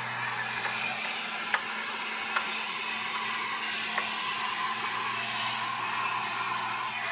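Electric heat gun blowing steadily while heat-shrinking window tint film onto the glass. Three short sharp clicks come about one and a half, two and a half and four seconds in.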